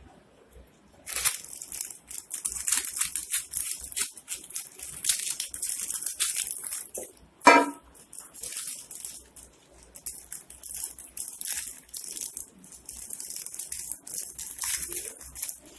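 Plastic atta flour packet crinkling and rustling in irregular bursts as it is handled and tipped to pour flour into a steel bowl, with one sharp knock about halfway through.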